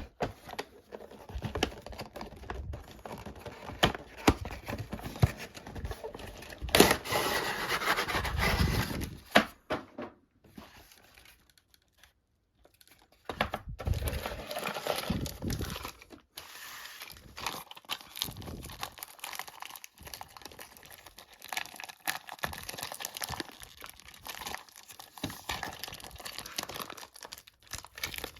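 Toy train set packaging being handled and opened by hand, with irregular crinkling, rustling and tearing. It is busiest for a few seconds about a quarter of the way in, stops briefly near the middle, then goes on more lightly.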